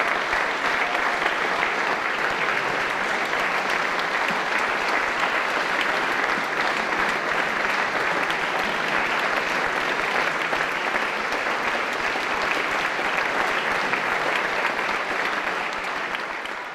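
Audience applause: steady, dense clapping that fades out at the very end.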